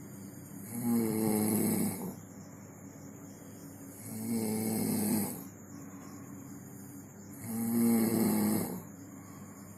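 A sleeping person snoring in a steady rhythm: three long snores about three seconds apart, each lasting a little over a second, with quiet breathing gaps between them.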